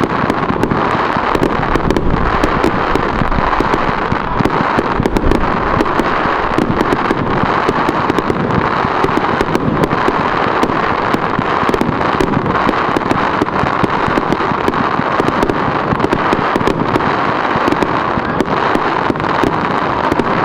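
Fireworks display going off continuously: a dense stream of sharp cracks and pops over a steady noise.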